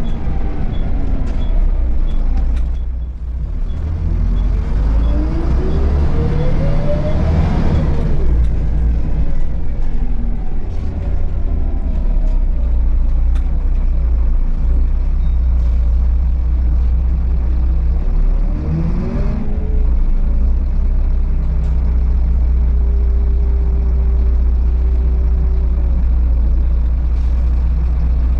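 Volvo B7RLE bus's rear-mounted inline-six diesel heard from inside the cabin, with a deep steady rumble; it accelerates twice, its pitch rising each time, the second time settling into a steady cruise. Short hisses of air come about eight seconds in and again around nineteen seconds.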